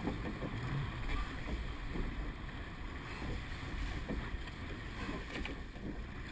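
Wind buffeting the microphone and water rushing past a surf boat's hull as it runs in on a wave, with faint scattered splashes.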